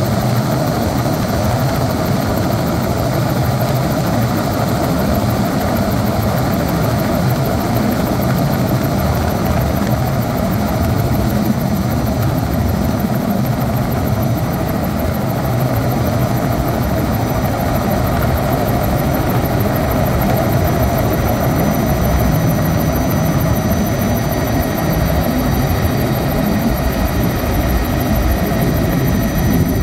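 Helicopter engine and rotor running steadily, heard from on board in the cabin: a loud, even drone with low rumble and no change in pitch.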